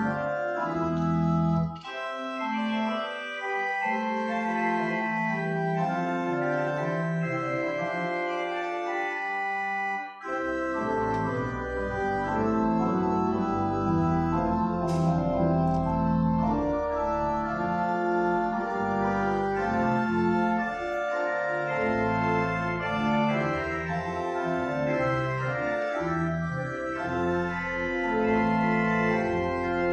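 Church organ playing a postlude of sustained full chords. The low bass notes drop out about two seconds in and come back about ten seconds in.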